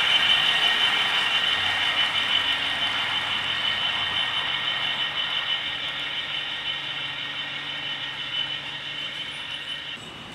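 OO gauge model train, a class 66 diesel model hauling autoballaster hopper wagons, running on outdoor track: wheels rattling over the rails with a steady high whine, slowly fading as the train moves away. The level drops suddenly near the end.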